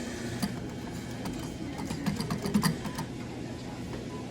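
Claw machine working, with a run of sharp clicks and light rattles from its mechanism, busiest from about a second to nearly three seconds in, over a steady electrical hum.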